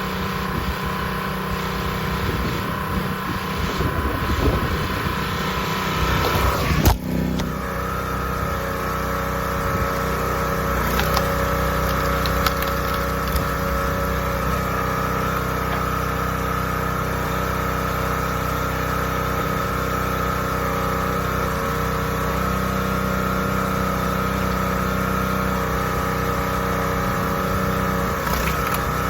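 Predator 212cc single-cylinder gas engine of a 20-ton hydraulic log splitter running steadily, with one sharp crack about seven seconds in.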